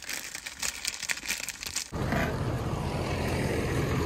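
A terrier puppy rummaging with its head in a crisp packet, the plastic crinkling. About two seconds in it cuts to the steady rumble of a tractor pulling a livestock trailer along a gravel track.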